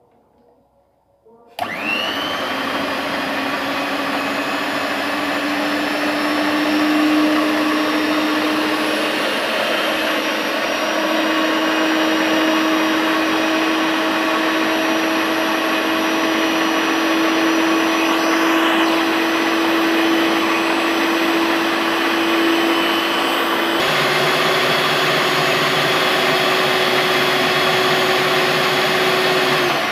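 Miyako electric stand mixer switching on about a second and a half in and running steadily, its motor whining as the beaters whip raw eggs in the bowl. Its sound steps slightly near the end.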